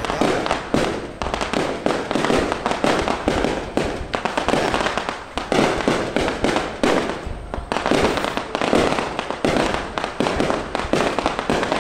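Aerial fireworks going off overhead: a fast, continuous run of bangs and crackling as shots climb and burst, easing briefly about seven seconds in before picking up again.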